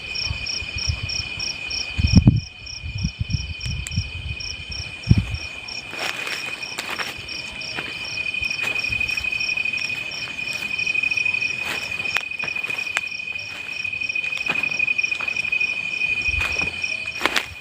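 Night insects calling: a steady high trill with a rapid, even chirping of crickets over it, about six pulses a second. Low thumps a few seconds in and scattered sharp clicks and rustles sit over the insect chorus.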